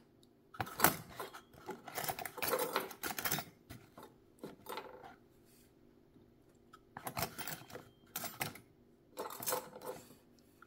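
Small metal sewing-machine attachments clinking and clattering as they are handled and put into their box, in about six short bursts of clicks with pauses between.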